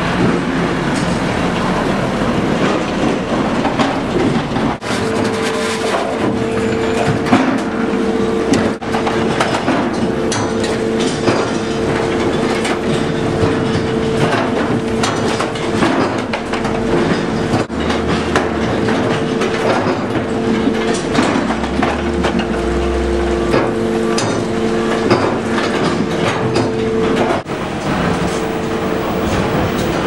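Log yard machinery running: a timber lorry's hydraulic loader crane unloads logs onto the sorting-line conveyor. It makes a loud, steady mechanical din with frequent clanks and knocks of logs and steel, and a steady whine joins in about five seconds in.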